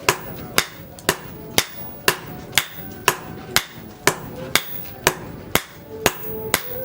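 Hammer blows forging leaf-spring steel, struck at an even pace of about two sharp metallic strikes a second.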